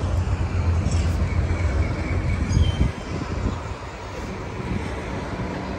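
Wind buffeting the microphone: a low, uneven rumble that eases off about three seconds in.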